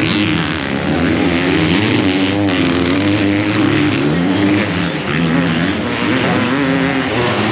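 Several 250cc motocross bikes racing on a dirt track, their engines revving up and falling back again and again as the riders work the throttle over the jumps.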